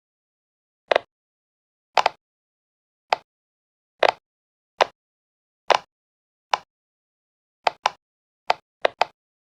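Silicone bubbles of a pop it fidget toy being pressed one after another, each giving a short sharp pop. There are about a dozen pops, roughly one a second, coming in quicker pairs near the end.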